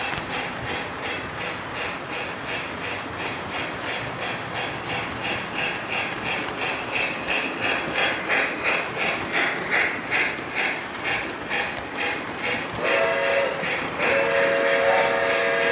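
Model steam locomotive sound system chuffing in a steady rhythm, about three chuffs a second, growing louder. Near the end the whistle gives a short toot, then a longer blast.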